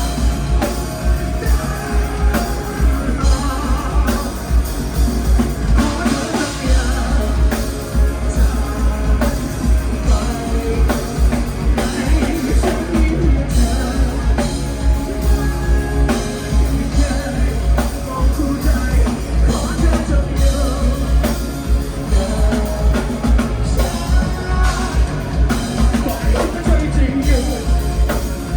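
A rock band playing loud and live, with a pounding drum kit, guitars and a singer, as heard in the room at a club gig.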